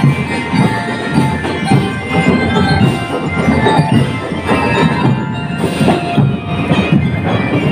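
Drum and lyre corps playing a marching tune: steady drumbeats under the ringing melody of bell-lyres.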